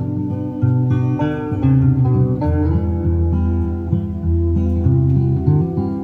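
Music with plucked guitar playing back from a cassette tape on an Akai CS-703D stereo cassette deck, through the amplifier and speakers, in a sound test of the deck.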